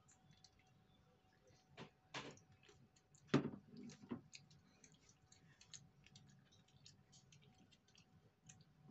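Small plastic beads clicking and ticking against a plastic shell-shaped bowl and tabletop as a child handles them. A few louder knocks come a couple of seconds in, the loudest about three and a half seconds in, as the plastic bowl is put down on the table.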